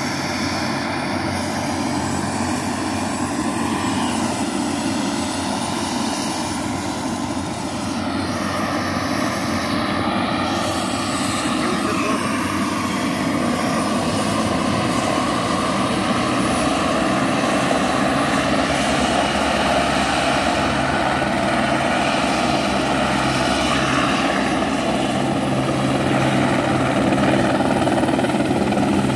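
A helicopter's turbine engine and rotor running steadily on the ground before takeoff, growing gradually louder toward the end.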